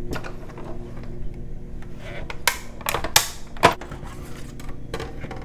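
Hand-cranked Stampin' Cut & Emboss die-cutting machine being cranked, its rollers drawing the plate-and-die sandwich through with a series of sharp clicks and clacks, the loudest cluster about two and a half to three and a half seconds in.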